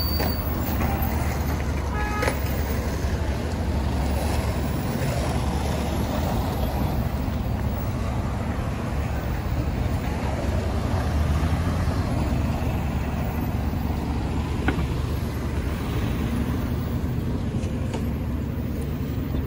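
City street traffic: a transit bus's engine running as it pulls away through the intersection, with cars passing, a steady low rumble. A short high squeal about two seconds in.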